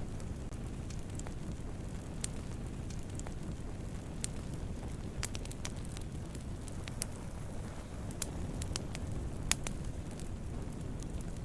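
Campfire of burning wood: a steady low rumble of flames with scattered sharp crackles and pops, one louder pop about nine and a half seconds in.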